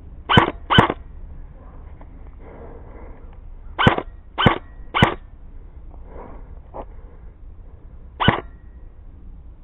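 Airsoft guns firing single shots in quick pairs and triples, about seven sharp pops in all: two early on, three close together around the middle, a fainter one, then one near the end.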